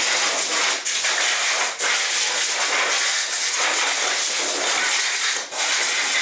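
Compressed-air blow gun hissing loudly as it blows loose dust and lint off a manual rotary screen-printing press, the air cutting out briefly three times.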